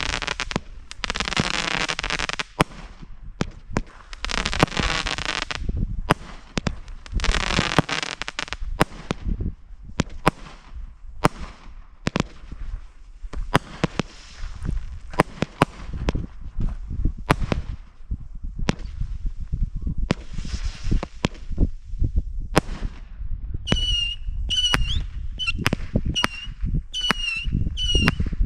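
Small consumer firework cakes going off: three long hissing rushes in the first nine seconds, with sharp pops and crackles throughout. About 24 seconds in, a whistling kitty chaser starts, a rapid string of short shrill whistles, about two a second.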